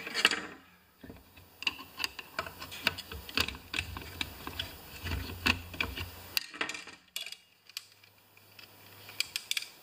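Screwdriver tightening the carburetor screws on a Homelite XP 1020 chainsaw's chassis: irregular small metallic clicks and ticks as the tool and parts shift, thinning out near the end.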